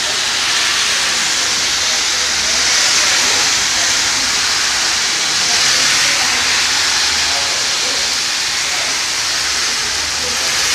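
Heavy downpour falling steadily on a flooded street and pavement, a dense even hiss of splashing water.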